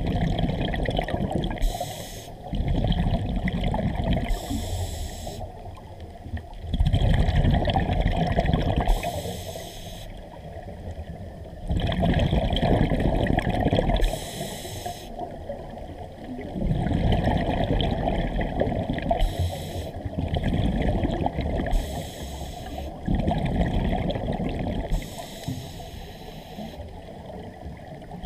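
Scuba diver breathing through a regulator underwater. Long bubbling exhalations come every four to five seconds, with a short, fainter hiss of inhalation between them.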